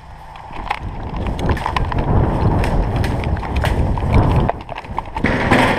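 Rumbling, gusty noise on the microphone with many scattered sharp clicks, growing louder about half a second in.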